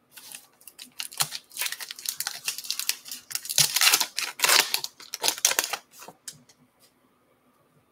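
A Gypsy Queen trading card pack's wrapper being torn open and crinkled by hand, a run of crackling rips and rustles, loudest around four seconds in, dying down to a few faint clicks near the end.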